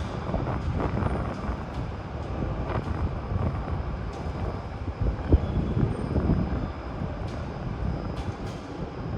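Strong storm wind buffeting the microphone: a heavy, gusting low rumble, with scattered light clicks and taps.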